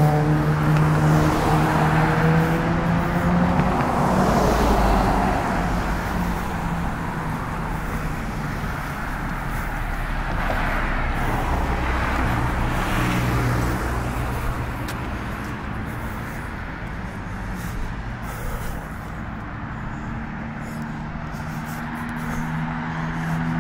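Road traffic passing on a street: cars go by one after another, their tyre noise swelling and fading. At the start an engine hum falls in pitch as a vehicle passes, and near the end another engine hum grows louder as a vehicle approaches.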